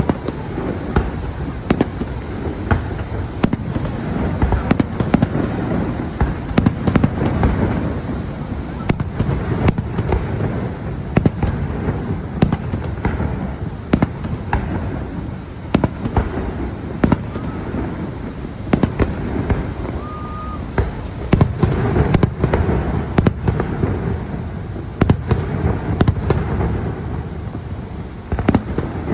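Fireworks display: a continuous run of bangs and crackling pops, several a second, over a steady low rumble.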